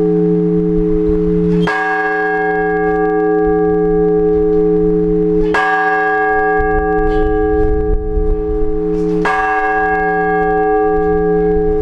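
Orthodox church bells ringing: a heavy bell struck three times at an even, slow pace, about four seconds apart. Each stroke rings on under the next, with a few faint lighter strikes in between.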